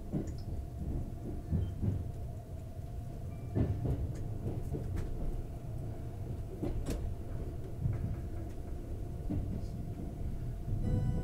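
Cabin noise of a limited express electric train heard from inside a passenger car: a steady low rumble with a faint constant hum and occasional short knocks and rattles.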